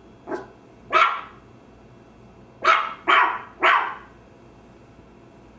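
A dog barking five times: a soft bark and then a louder one in the first second, then three quick barks together near the middle.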